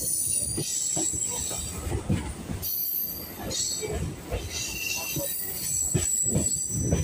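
Electric local train running: a low rumble of the carriage with irregular knocks from the wheels, and high, thin squeals from the wheels that come and go as the train takes a curve.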